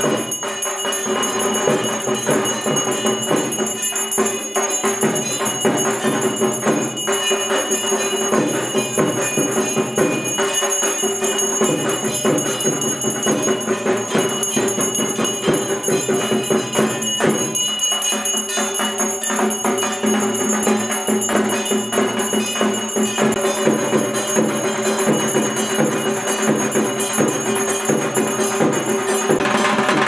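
Brass hand bell rung continuously during puja worship, its ringing held steady under fast, dense rhythmic percussion.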